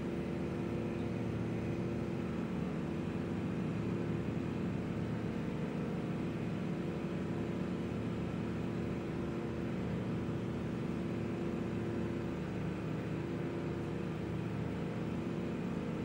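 Steady mechanical hum with several held low tones.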